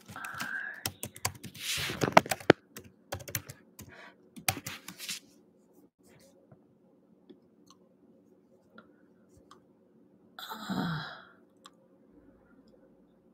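Typing and clicking on a computer keyboard for about five seconds, in quick uneven runs of keystrokes. A faint steady hum sits underneath, and a short vocal sound comes about ten and a half seconds in.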